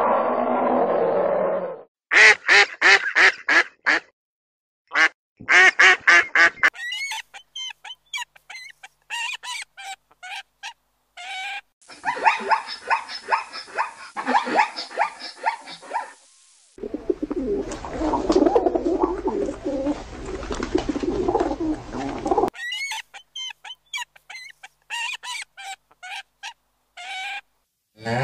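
Ducks quacking in quick runs of short calls, stopping and starting throughout, with a denser, noisier stretch of calling in the middle. A low growl fades out in the first two seconds.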